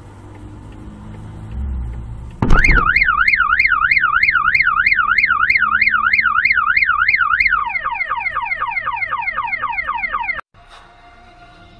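A sudden thump, then a car alarm going off. It warbles up and down about three times a second, switches about five seconds later to faster falling chirps, and cuts off suddenly about ten seconds in.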